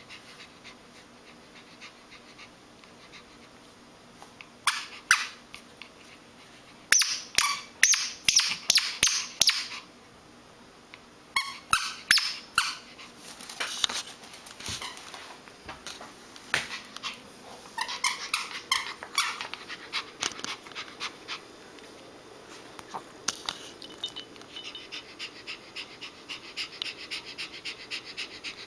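Pomeranian dog at play, with bursts of short, sharp, high squeaky sounds in several groups. Near the end comes a faster, quieter, regular run of ticks.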